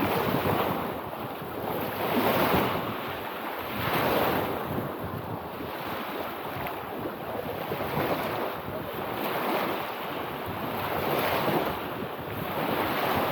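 Small freshwater lake waves washing onto the shore of the Sea of Galilee, surging and receding every couple of seconds, with some wind on the microphone.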